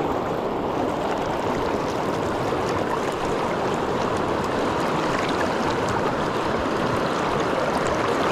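Fast-flowing mountain river rushing over rocks: a steady, even wash of moving water.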